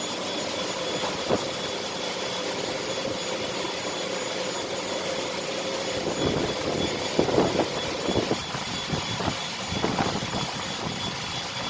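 Steady industrial machinery noise in a power plant: a constant rush with a faint steady whine above it. There is a click about a second in and a few irregular bumps between about six and ten seconds.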